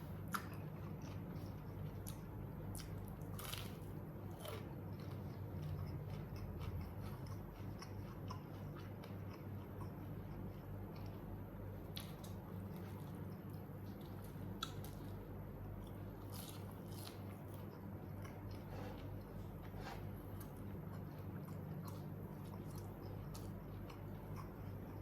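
Close-up chewing and biting of smashed fried chicken (ayam geprek) with rice, eaten by hand, with scattered crunches. A steady low hum runs underneath.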